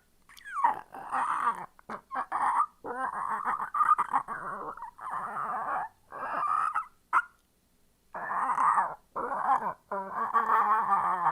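A person making strange dog-like vocal noises into a close microphone: growls and whimpering whines in a run of short bursts, with one longer pause about three quarters of the way through and a longer, lower growl at the end.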